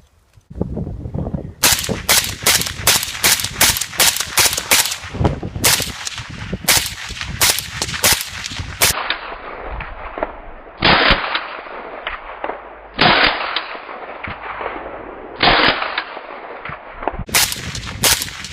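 Suppressed rifle gunshots: a rapid string of about three shots a second for some seven seconds, then single shots about two seconds apart, and two quick shots near the end.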